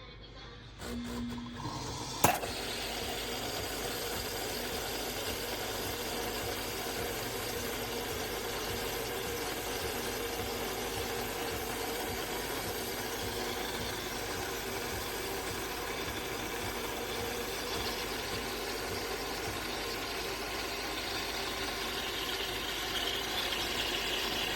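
De'Longhi Magnifica Start fully automatic espresso machine starting with a sharp click about two seconds in, then running with a steady mechanical hum for about twenty seconds before stopping at the end.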